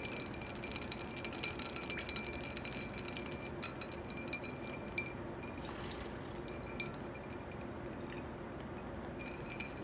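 Red vinegar drink moved about in a ceramic bowl held up to the microphone as ASMR: small clinks and liquid sloshing, frequent for about the first four seconds and then thinning out.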